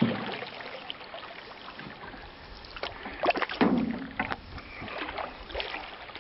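Canoe being paddled: irregular paddle strokes and splashes in the water, with a few sharper knocks.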